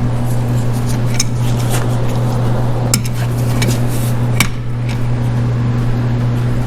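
A steady low hum with a handful of light metallic clinks and knocks spread through, from engine parts being handled and set down.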